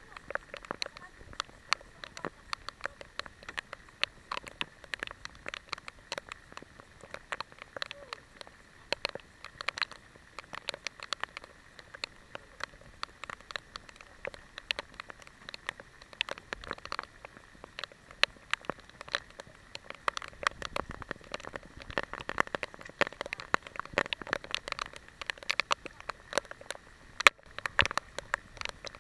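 Heavy rain, with raindrops striking the camera's housing as a dense, irregular patter of sharp taps.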